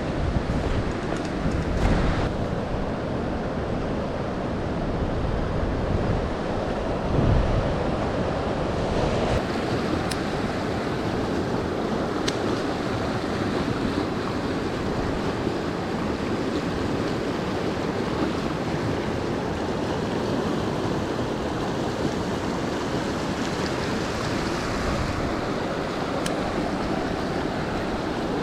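Mountain stream water rushing steadily, with a few faint clicks.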